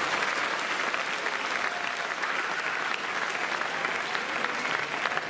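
Spectators applauding steadily at the end of a badminton rally.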